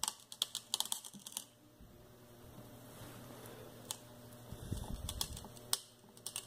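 A 12 mm hand tap in a tap wrench cutting threads into plexiglass, giving bursts of sharp clicks and creaks in the first second and a half and again near the end. It is being turned dry, without cutting oil, so it goes stiffly.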